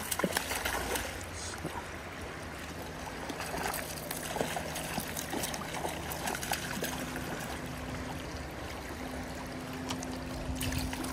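Steady rush of river current with scattered small splashes from a hooked trout thrashing at the surface.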